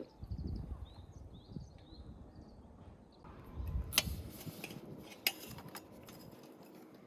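Low handling thumps and rustling, then two sharp clicks, like gear or utensils knocking, about four and five seconds in.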